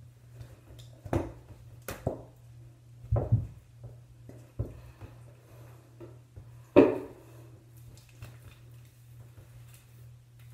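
Knocks and bumps in a bathtub while a puppy is being bathed: about half a dozen sudden thumps, the loudest about two-thirds of the way through, over a steady low hum.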